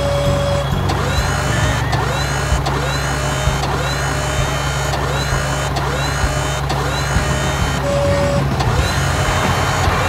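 Cartoon sound effects for a mobile crane truck at work: a steady engine hum under a rising whoop that repeats about every 0.7 seconds, with a short single beep near the start and another about eight seconds in.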